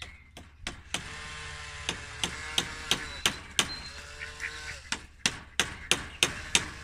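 Claw hammer driving nails into a timber rail: a run of sharp blows, about three a second, with pauses between runs. A steady humming tone sounds in two of the pauses.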